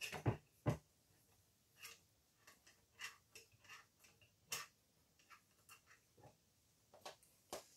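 Allen key clicking against the front action screw and the aluminium rifle chassis as the screw is tightened: two sharp clicks close together near the start, then sparse faint metal ticks.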